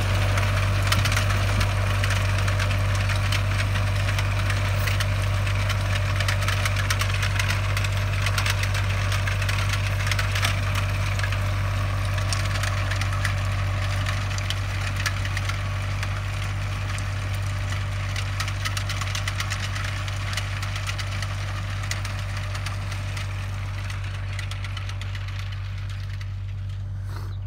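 Steyr 768 tractor's diesel engine running steadily under load while it pulls a sugar beet inter-row cultivator, growing gradually fainter as the tractor moves away.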